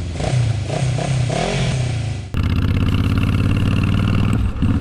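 Motorcycle engine running on the move, its pitch rising and falling as it revs. About two seconds in the sound cuts abruptly to a steadier, even engine note, with a short dip just before the end.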